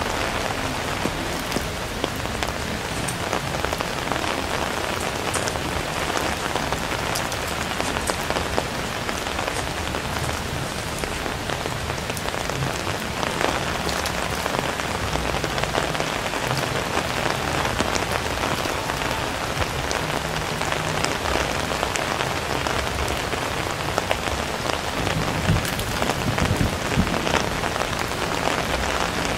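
Steady rain falling on a city street, a continuous hiss sprinkled with many small drop ticks. A low rumble rises slightly near the end.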